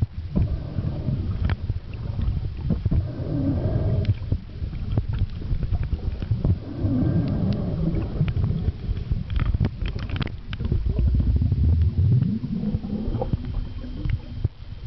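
Muffled sound of water heard through an underwater camera: a low rumble and swishing from moving water, with many small clicks and knocks throughout.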